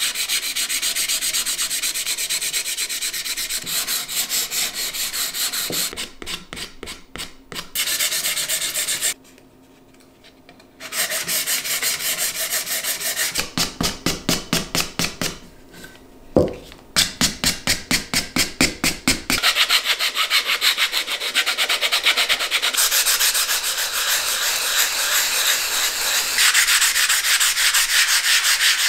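Hand-sanding a wooden cutting board with abrasive cloth: rapid back-and-forth scraping strokes, coarse 80-grit first and 180-grit to finish near the end. The strokes pause for about two seconds about a third of the way in, and there is one sharp knock about halfway.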